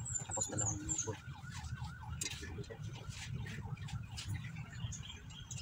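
A distant electronic alarm warbling, its tone wavering about five times a second, over a steady low hum. A small bird chirps a quick run of short high falling notes in the first second.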